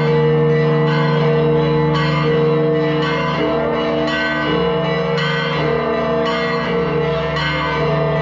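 Church bells of the Church of the Holy Sepulchre ringing out together, several bells overlapping, with fresh strikes about twice a second over a continuous ringing hum.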